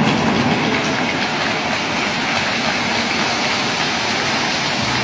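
Stage spark fountains (gerbs) going off, a loud steady hiss.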